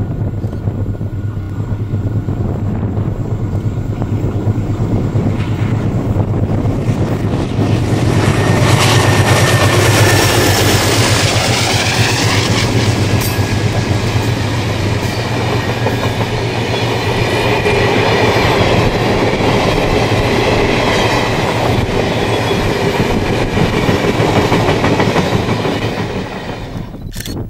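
Diesel-hauled passenger train passing: the locomotives' engine drone grows louder and peaks about eight to ten seconds in, then a long rake of stainless-steel passenger carriages rolls past with steady clickety-clack wheel and rail noise.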